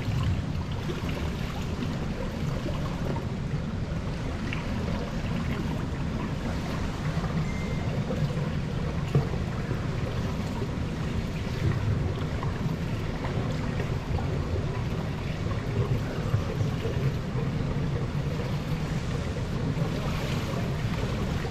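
Swimming pool ambience: a steady low rumble with water lapping gently against the pool edge around the still, breath-holding freediver.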